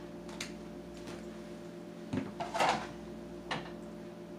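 Hard plastic clacks and knocks as a plastic pitcher and its lid are handled on a kitchen countertop. The loudest clatter comes a little past the middle, over a steady low hum.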